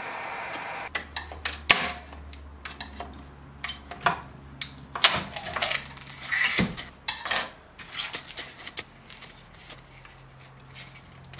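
A scraper prying a large printed plastic skull off a 3D printer's bed: irregular scrapes, clicks and knocks of the blade against the bed and the print. A steady hiss cuts off about a second in.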